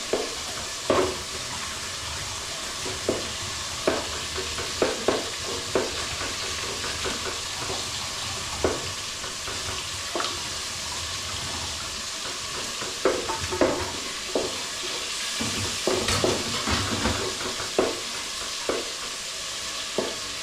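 Food sizzling in a hot cooking pot as it is stirred: a steady hiss, with irregular knocks and scrapes of the stirring spoon against the pot, clustering about two-thirds of the way through.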